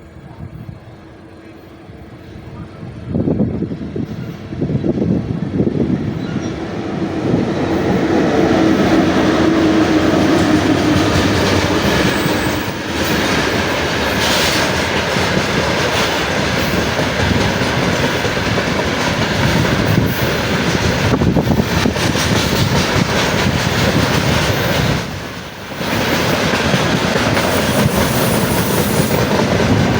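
A train approaching and passing, its rumble building over the first several seconds, then the wheels clattering over the rail joints in a steady run, with a brief drop in level about twenty-five seconds in.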